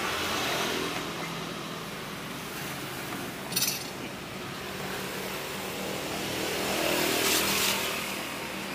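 Motor traffic passing on the street, swelling as a vehicle goes by near the end, with one brief sharp sound about halfway through.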